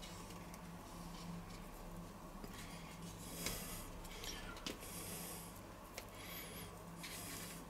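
Wooden spoon scraping clarified butter out of a plastic tub and into a pan: a few faint, brief scrapes and a light tap about three and a half seconds in, over a steady low hum.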